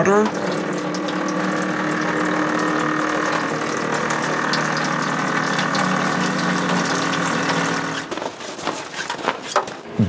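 Water pump running with a steady hum while water pours from a hose into a plastic bucket; the pump stops about eight seconds in.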